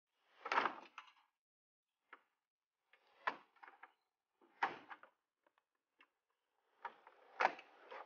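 Plastic locking collars on the badge's pins being worked off with a small metal spanner: four short bursts of clicking and scraping plastic, with fainter ticks between.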